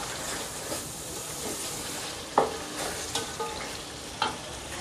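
Chicken masala sizzling as it fries down in an aluminium pot, stirred with a wooden spatula. A few short knocks and scrapes of the spatula on the pot sound over the steady sizzle, the sharpest about halfway through.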